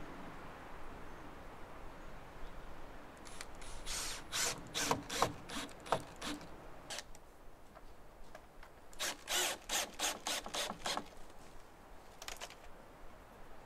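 Cordless drill/driver driving screws into a wooden rail in short trigger bursts: two runs of rapid whirring strokes, the second about three seconds after the first, and a brief burst near the end.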